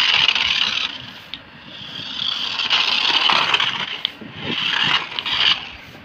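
Small toy RC car's electric motor and plastic gears buzzing as it drives, in three bursts of about a second or so each with short pauses between, and a few sharp clicks.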